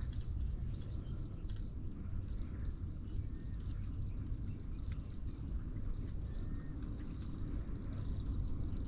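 A cricket trilling in one steady, unbroken high-pitched note, over a low outdoor rumble.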